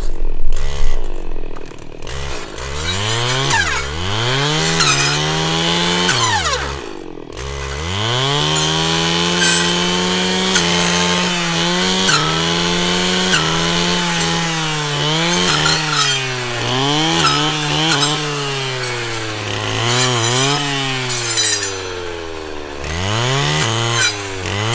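Brush cutter running at high revs, cutting branches: the engine pitch sags again and again as the blade bites into the wood, then climbs back, under a harsh, high rasp of cutting.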